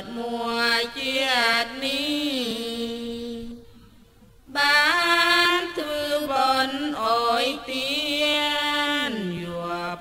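A single voice chanting a Buddhist chant in long held notes that glide up and down in pitch. There is a short pause about four seconds in.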